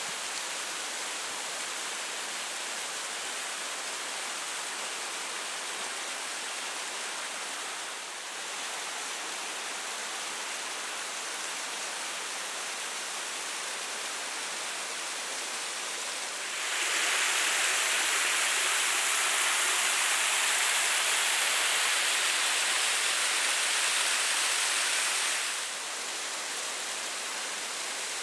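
Waterfall rushing: a steady hiss of falling water. It grows louder for about nine seconds past the middle, then drops back.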